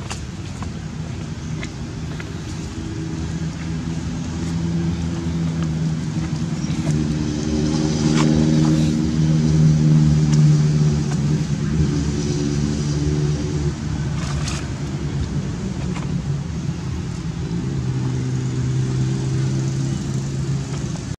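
A motor vehicle's engine running steadily as a low hum, growing louder toward the middle and easing off again, with a few faint clicks.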